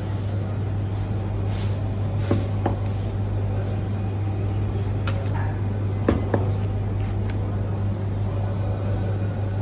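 Steady low machine hum, with a few sharp taps of a knife blade reaching a plastic cutting board as raw meat is sliced thin; the taps fall in two small clusters, about two and a half and six seconds in.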